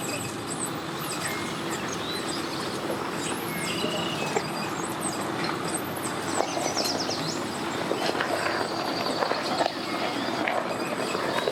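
A steady engine running, with short bird chirps over it.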